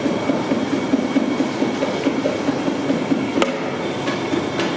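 A large metal pot of mutton paya (goat trotter) broth bubbling at a rolling boil while a long metal ladle stirs and scrapes through it. There is a sharp knock about three and a half seconds in.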